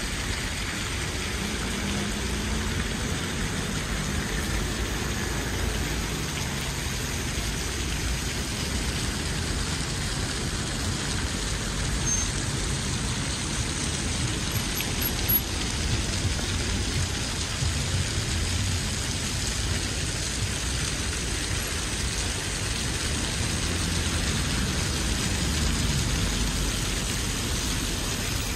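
Steady road traffic: cars passing on the streets around a town square, with low engine and tyre rumble that swells and fades a few times over a constant hiss.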